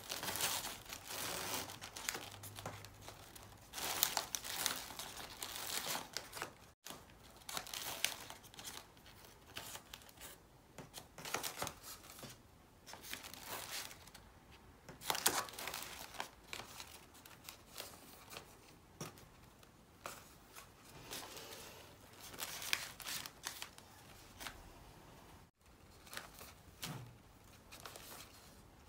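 Wrapping paper and ribbon rustling and crinkling in irregular bursts as two ribbons are pulled tight and tied into a bow around a paper-wrapped bouquet.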